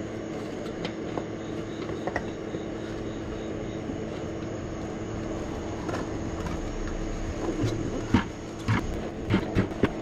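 A steady machine hum runs under the whole stretch. From about seven and a half seconds in come a series of short knocks and rubbery rustles as a fat bike tire and its inner tube are worked off the wheel rim by hand.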